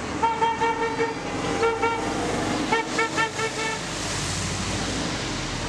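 Car horn tooting in three quick runs of short honks, passing drivers answering 'Honk if you support' placards; traffic noise follows near the end.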